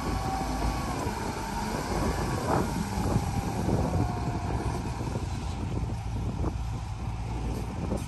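Heavy earthmoving machinery's diesel engine running steadily, with a thin whine that slowly falls in pitch over the first few seconds and scattered metallic clanks.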